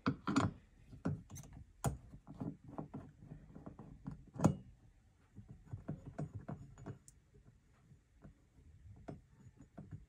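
Screwdriver working the screw out of a utility-sink faucet handle: an irregular run of small clicks and knocks, with a few louder knocks about two seconds in and near the middle.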